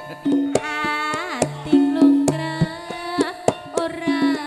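Javanese gamelan music accompanying tayub dancing: frequent hand-drum strokes over held metallophone tones, with a woman's singing voice sliding in pitch about a second in and again near the end.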